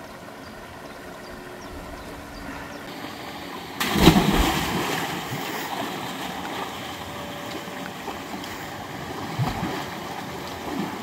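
Waterfall and stream water running steadily; about four seconds in, a loud splash as a person plunges into the pool, the churning water dying away over the next couple of seconds.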